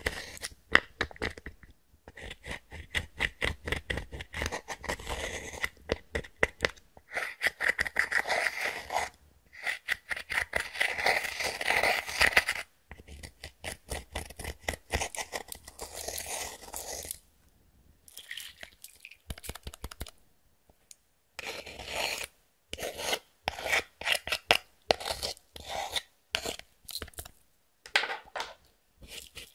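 Hands squishing, folding and stretching clear slime with makeup and glitter mixed in, making fast wet clicks and pops that come in runs separated by short pauses.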